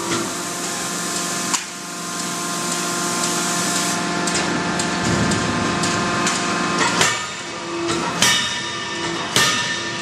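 Hydraulic double-acting forging hammer striking a few sharp blows: one about a second and a half in, then a cluster near the end. Between the blows there is a steady machinery hum.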